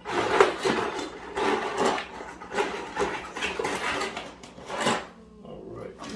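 Tools and small parts being handled on a workbench: a run of irregular clattering knocks and scrapes, easing off near the end.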